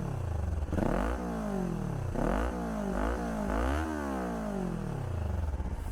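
Kawasaki Ninja 400 parallel-twin engine through a Yoshimura R11 slip-on exhaust with the dB killer fitted, revved in about four quick throttle blips. The pitch rises and falls back each time, settling toward idle near the end.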